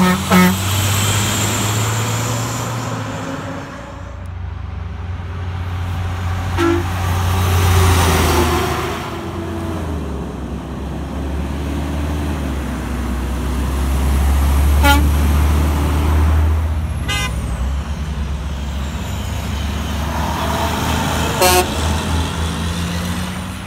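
Heavy trucks passing with their diesel engines running, and a handful of short air-horn toots spread through. The last and loudest toot, near the end, comes from a Kenworth T800's dual Grover 2000 air horns.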